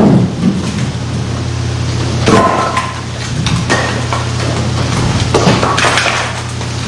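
Split cherry firewood knocking and clattering as pieces are unloaded from a pickup bed: a handful of separate sharp knocks, some with a short ring, over a steady low hum.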